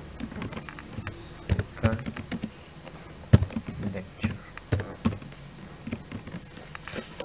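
Typing on a computer keyboard: irregular keystrokes, a few a second, one louder key strike about a third of the way in.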